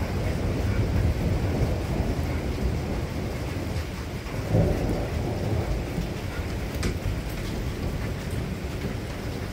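Thunder rumbling continuously, low and rolling, swelling louder about halfway through.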